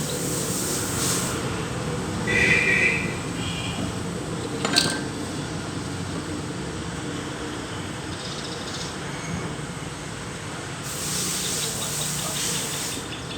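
A few light clinks and one sharp click over steady low background noise.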